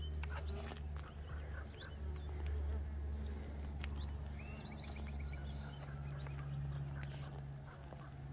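Mason bees buzzing, a steady low hum, with birds chirping in the background.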